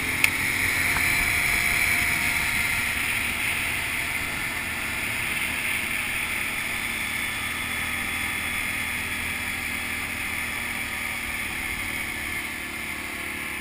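ATV engine running at a steady cruise, mixed with tyre and wind noise, as the quad drives along a gravel track. A single sharp click about a quarter second in.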